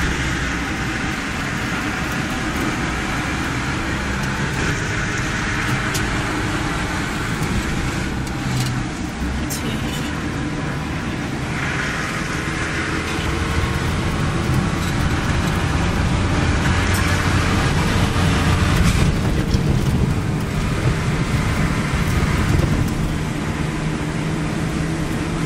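Camper van driving, heard from inside the cab: a steady engine drone under tyre and road noise, growing somewhat louder in the second half.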